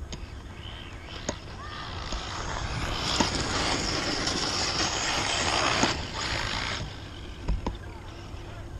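Brushless-powered Traxxas E-Maxx RC monster truck driving over loose gravel: a hiss of tyres on stones that swells over a few seconds and cuts off suddenly about seven seconds in.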